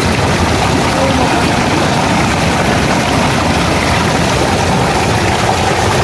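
Water cascading and splashing between rocks close to the microphone: a steady, loud rushing noise.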